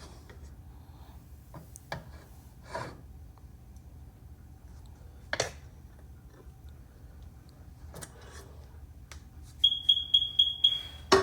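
A rapid run of high electronic beeps from an appliance beeper, about five a second for a second and a half near the end. Before it come scattered light kitchen clatter and knocks, and a sharp knock just after the beeps.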